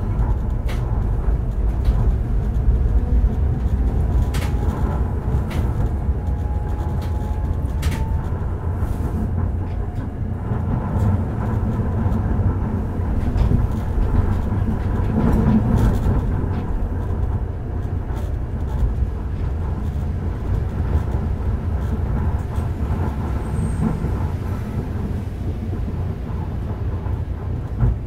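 Hakodate City Tram 3000 series car 3002 running, heard from inside: a steady rumble of wheels on rail with a few sharp clicks. In the first eight seconds or so, a faint rising whine comes from the car's early Toyo GTO VVVF inverter drive.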